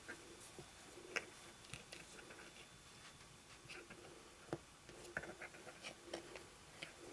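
Faint handling noise of a plastic joint connector being worked into a vinyl doll limb: scattered small clicks and light rubbing, the sharpest about a second in and about four and a half seconds in.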